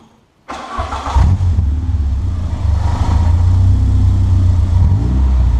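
Peugeot 205 Rallye's 1.9-litre four-cylinder engine starting about half a second in and settling into a steady idle, heard from behind the tailpipe through its newly fitted exhaust header, which replaced a cracked one.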